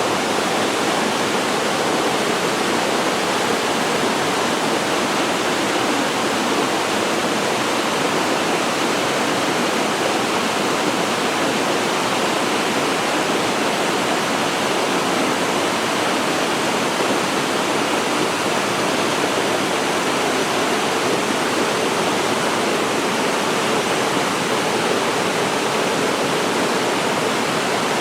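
Waterfall pouring steadily into a mountain-valley pool, an even rushing of falling water with no let-up.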